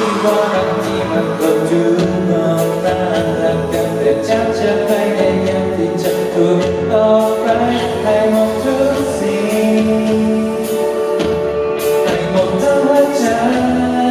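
A man singing a slow song live into a microphone, accompanied by piano.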